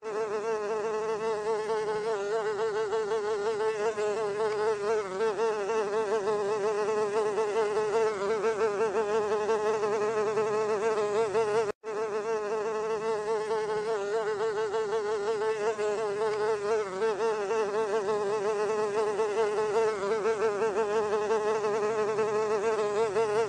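Housefly wings buzzing continuously, a steady drone whose pitch wavers slightly. It cuts out for a split second about halfway through, then carries on unchanged.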